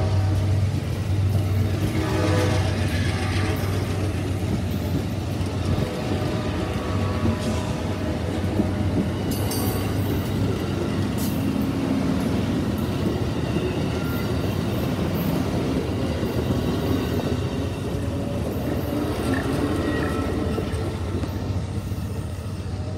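Amtrak Silver Star passenger cars rolling past close by: a steady rumble of wheels on rail, with a few sharp high clicks about ten seconds in, fading a little near the end as the train pulls away.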